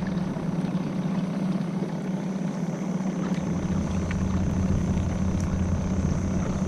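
Small boat's motor running steadily at low speed, a low even hum with a thin high whine above it.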